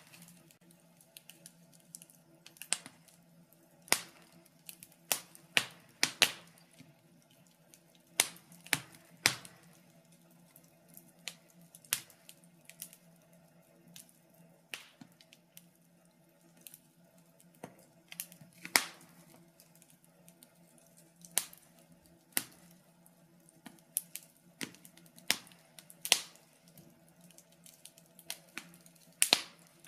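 Wood fire in a fireplace crackling: irregular sharp snaps and pops, one or two a second, some much louder than others, over a faint steady low hum.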